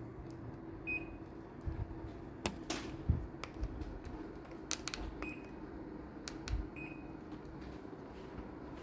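Daikin split air conditioner's indoor unit giving three short high beeps, about a second in, past the middle and near the end: the acknowledgment beep as it takes remote-control commands. Sharp clicks and a few low knocks come between them over a steady low hum.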